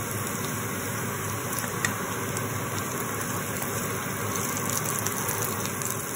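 Chopped onions, with grated ginger and green chilli, sizzling steadily as they fry in butter and oil in a kadai, with a wooden spatula stirring them and now and then tapping or scraping the pan.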